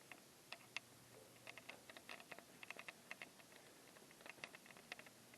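Faint, irregular small clicks and taps, in loose clusters, over quiet room tone.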